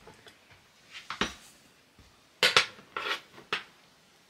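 A measuring cup knocking and scraping against the rim of a Bosch mixer's bowl as flour is tipped in. It makes a few short, sharp clinks, loudest about two and a half seconds in.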